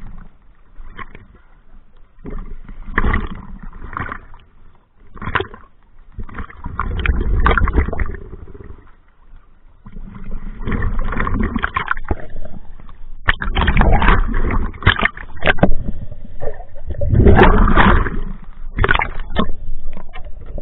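Choppy surface water sloshing and splashing against a diver's camera in irregular surges, some a second or two long and some short splashes.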